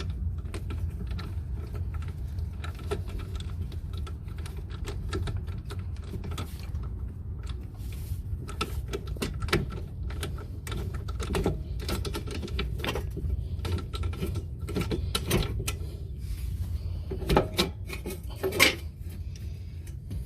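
Hand tools and metal parts clicking and clanking while a wheel hub assembly is worked off a car, with a few louder metallic knocks near the middle and end, over a steady low hum.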